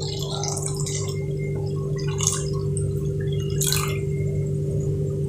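Milk being poured from a steel vessel into a steel pan of cooked rice paste, with faint liquid splashing, over a steady humming tone.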